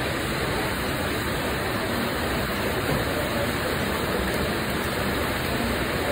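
Steady rushing noise of a commercial kitchen line, from the exhaust hood fan over a gas char-grill, even and unbroken.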